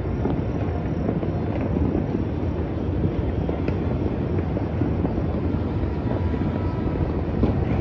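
Many distant New Year fireworks and firecrackers going off at once, blending into a continuous rumble, with a few sharper cracks standing out.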